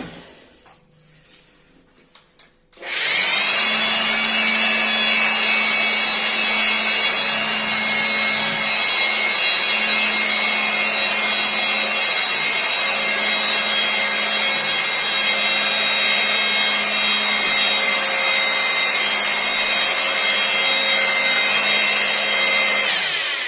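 Handheld electric air blower (KTC K28A) switched on about three seconds in, its motor coming straight up to full speed and running steadily with a high whine and a rush of air. Near the end it is switched off and spins down, the whine falling in pitch.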